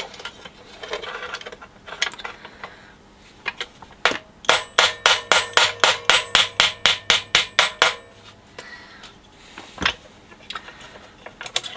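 A screwdriver tapping rapidly on the metal deck of a BSR UA15SS record changer: a run of sharp, ringing metallic strikes, about four a second for some three and a half seconds starting about four seconds in, then a single heavier knock near the end.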